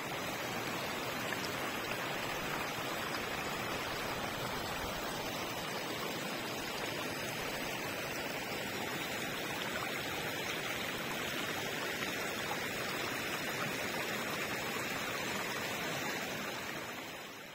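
Steady rushing and gurgling of water in a shallow rocky stream, fading out near the end.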